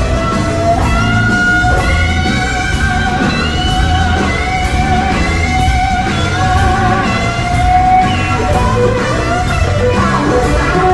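Electric blues guitar lead with string bends and a long held note with vibrato, played with bass and drums keeping a steady beat.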